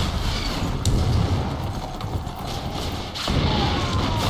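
Film battle-scene sound effects: an explosion's blast and heavy low rumble, with a sharp crack about a second in.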